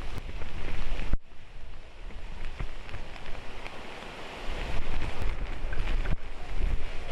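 Typhoon wind and heavy rain, with gusts buffeting the microphone. The sound changes abruptly about a second in and again near the end, as the footage cuts between shots.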